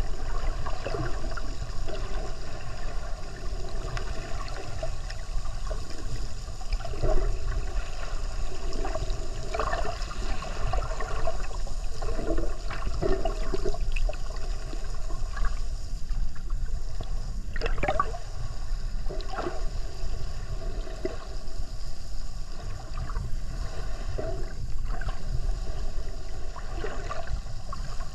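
Muffled underwater ambience picked up by a submerged camera: a steady low rumble of water with scattered short gurgles and bubbly sounds.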